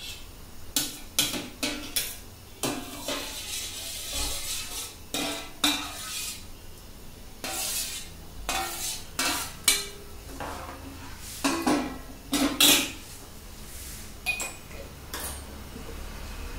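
Steel spoon stirring potato curry in a steel kadhai, with irregular clinks and knocks of metal on metal as it scrapes and strikes the pot and the steel plate lid.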